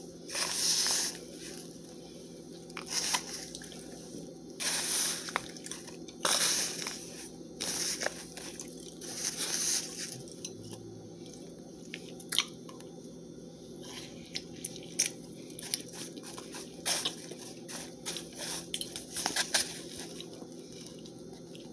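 Plastic spoon scooping and pressing through a plate of clumpy cornstarch, making irregular crunches: several longer scoops in the first half, then shorter, sharper crunches and taps.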